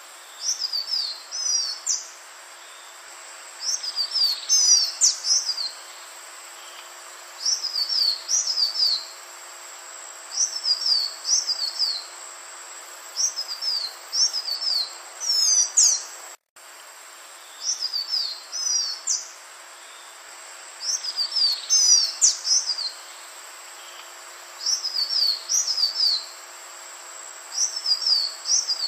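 Green iora (Aegithina viridissima) singing: short bursts of quick, high, sliding notes, repeated every two to three seconds over a steady background hiss. The sound cuts out to silence for a moment just past halfway.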